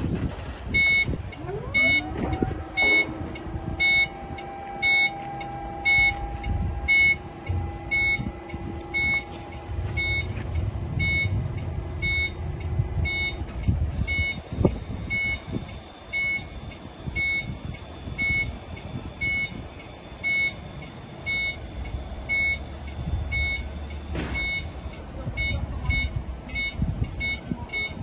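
JCB S1930E electric scissor lift raising its platform: the motion alarm beeps about once a second over the steady whine of the hydraulic lift pump. The whine stops about halfway through while the alarm keeps beeping, quicker in the last few seconds.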